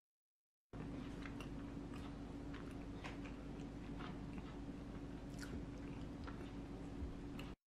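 Hotteok and red-bean bungeoppang being pulled apart by hand close to the microphone: scattered small crackles and crunches of the crisp crust over a steady low hum. The sound starts suddenly about a second in and cuts off just before the end.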